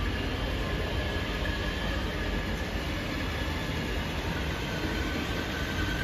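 Battery-powered ride-on toy car driving across a tiled floor: a steady low rumble from its hard plastic wheels and electric gear motors, with a faint whine.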